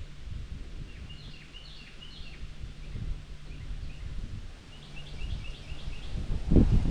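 Songbirds chirping from the lakeside woods in quick repeated short phrases, over a low steady rumble, with a single low thump near the end.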